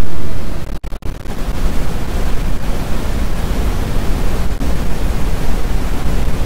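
Electronic red noise, resynthesized from a half-second tone-generator noise source: a dense hiss weighted toward the bass. It cuts out sharply twice about a second in, then runs on with a quickly fluttering level.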